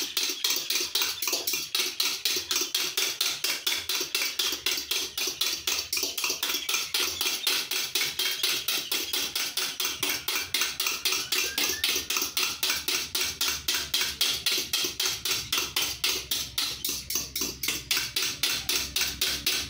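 Eggs being beaten by hand in a bowl: a utensil striking the bowl in a fast, steady rhythm of about four to five strokes a second, as the eggs are whipped to a rising foam.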